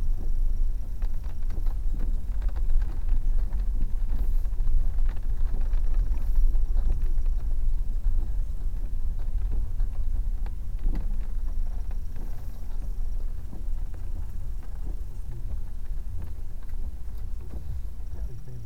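Car rumble heard from inside the cabin as the car rolls slowly, with scattered small crackles and crunches from the tyres. It grows quieter over the last several seconds as the car comes to a stop.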